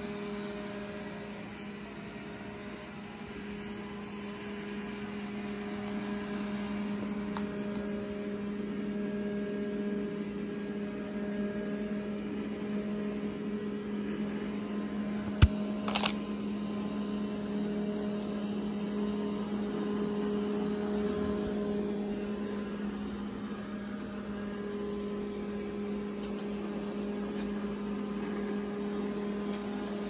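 Roborock S5 robot vacuum running on carpet, its suction motor giving a steady hum as it cleans up spilled cereal. A sharp click about halfway through, and a brief crackle just after it.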